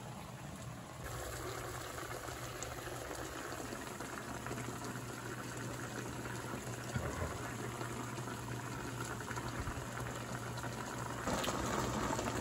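Marsala sauce of chicken stock and butter boiling hard in a stainless steel pan, with floured chicken breasts simmering in it: a steady bubbling that grows louder about a second in and again near the end.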